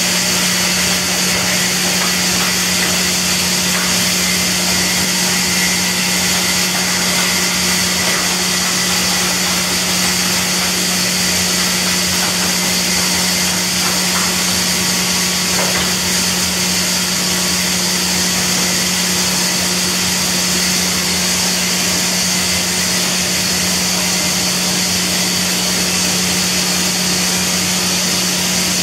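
Baker Blue Streak 3650E bandsaw mill with its 50 HP motor running steadily: a constant hum under a high hiss.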